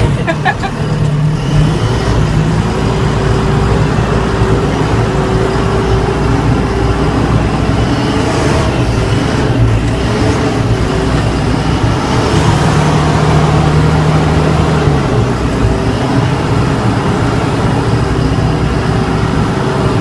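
JCB backhoe loader's diesel engine running steadily while the machine is driven, heard from inside the cab. The deep engine note strengthens for a couple of seconds about twelve seconds in.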